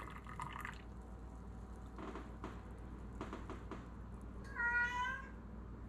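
A house cat meows once, a short high call about four and a half seconds in, lasting under a second. Before it there are a few faint knocks of a canning jar and funnel being handled.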